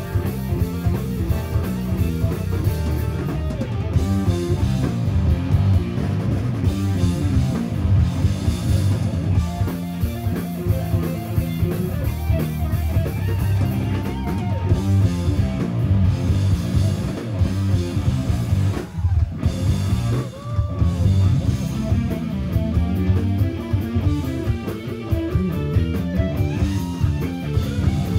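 Live instrumental rock band playing: electric guitar over electric bass and a drum kit, loud and continuous. A couple of guitar notes bend up and back down near the middle, with a brief drop in the full band just before the second.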